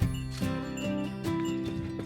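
Background music: a melody of short notes changing pitch every fraction of a second, with light percussive strokes.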